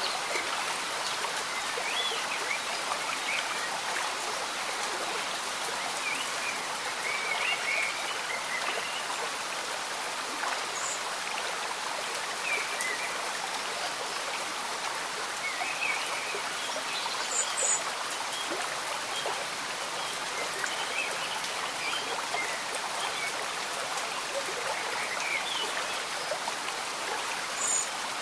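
Slow-moving stream bubbling steadily, mixed with gentle rain falling, with small high gurgles scattered through it.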